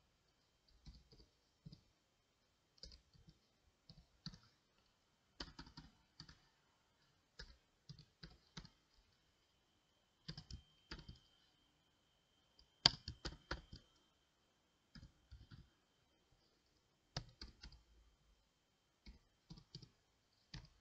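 Computer keyboard being typed on: faint, irregular runs of key clicks with short pauses between them.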